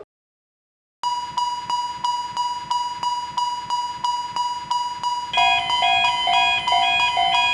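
Railroad crossing warning bell ringing in a steady rhythm of about three strikes a second, starting after about a second of silence. About five seconds in, a second, differently pitched alternating two-tone chime joins it.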